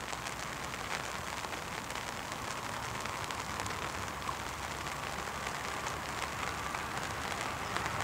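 Jet airliner on approach, heard from a distance as a steady rushing noise that grows slowly louder, with a light scatter of small crackles over it.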